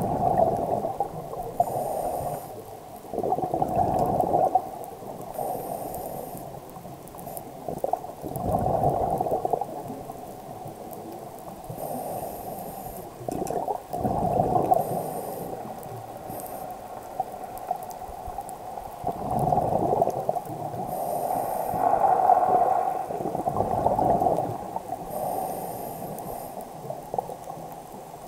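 Scuba diver's regulator breathing underwater: a faint hissing inhale, then a louder bubbling exhale, about six breaths repeating every few seconds.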